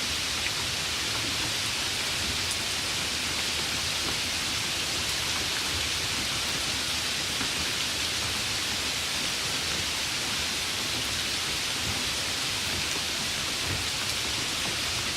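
Light rain falling steadily, an even hiss of many small drops with no let-up.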